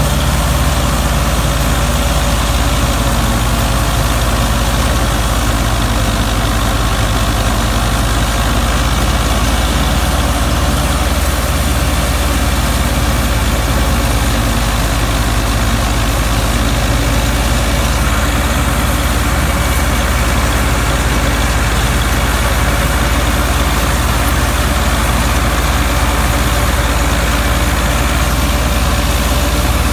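Belarus 510 tractor's 62 hp four-cylinder diesel engine running steadily under load while it drives a PTO straw chopper, mixed with the chopper's steady machinery noise. The engine note is a constant deep drone with no revving.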